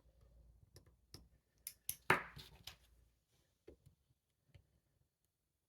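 Small metal clicks and ticks of lock-picking tools working the pins of a Van Lock padlock. One louder metallic click with a short ring comes about two seconds in.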